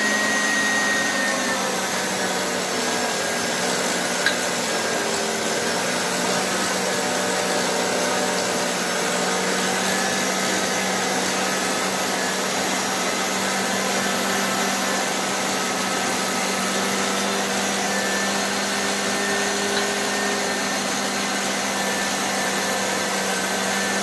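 Kenwood kitchen machine's meat-grinder attachment running steadily, its electric motor humming evenly as it minces pork, chicken breast, onion and soaked bread pushed down the feed tube.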